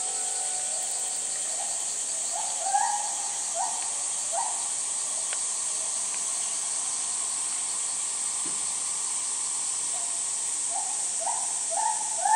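Steady, high-pitched drone of summer cicadas. Over it, short rising calls repeat in a few quick runs, loudest near the end.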